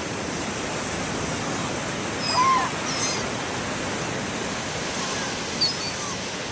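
Steady ocean surf noise, with a seagull calling loudly once about two and a half seconds in and a few short, high calls later.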